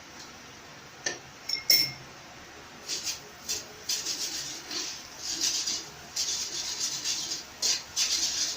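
A utensil clinks sharply against a pan a few times, with a brief ringing clink. It then scrapes and stirs in the pan in repeated short strokes, working half a beef cube into melted butter for a gravy.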